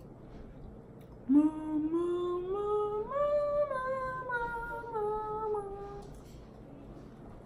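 A woman humming or singing a wordless tune. Her voice starts low about a second in, steps up through several held notes to a high note, then slides slowly back down and stops near the end.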